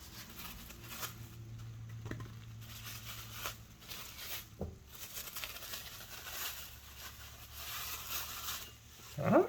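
Packaging being handled and unwrapped: rustling and crinkling with scattered light clicks and knocks as printer parts come out of the box. Near the end a short, louder sound with a rising and falling pitch.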